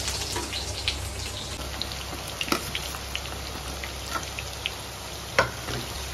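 Sliced onions sizzling and crackling in hot oil in a steel wok, with scattered small pops. A steel ladle knocks against the wok twice as it stirs, the louder knock about five seconds in.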